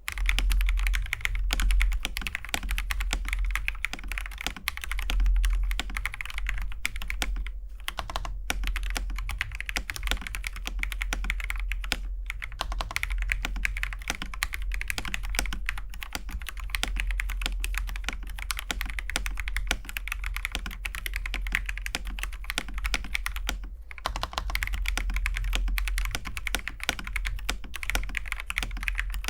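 Fast, continuous typing on a TM680 mechanical keyboard with stock, unlubed Akko Jelly Pink linear switches: dense clacking keystrokes with a few brief pauses.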